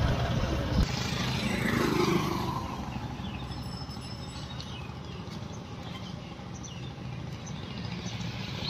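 Road ambience in a village: a vehicle passes in the first two seconds, its sound falling in pitch as it goes by, over wind rumble on the microphone. It then settles to a low steady background with a few faint short chirps.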